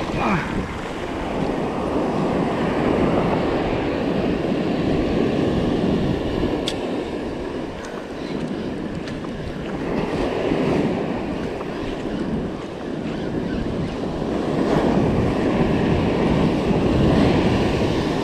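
Surf breaking and washing up a sandy beach, swelling and easing several times, with wind buffeting the microphone.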